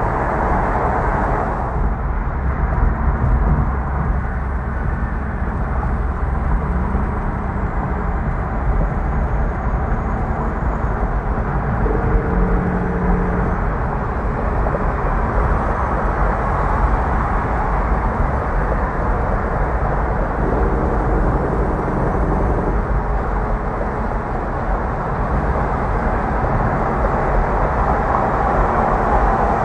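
Kenworth W900 semi-truck with a reefer trailer running at highway speed alongside, its diesel engine and tyres giving a steady low rumble mixed with road and wind noise.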